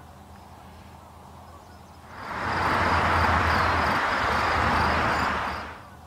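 An outdoor rushing noise swells up about two seconds in, holds steady, then fades away near the end, over a faint low hum.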